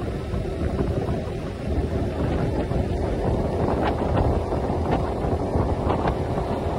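Wind buffeting the microphone of a Suzuki Raider R150 underbone motorcycle riding at steady speed, with its single-cylinder engine running underneath the rush.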